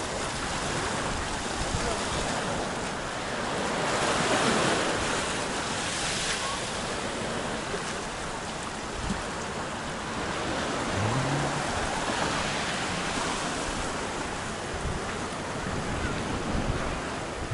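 Small sea waves washing up the sand and breaking among shoreline rocks, with a swell in loudness about four seconds in, and wind buffeting the microphone.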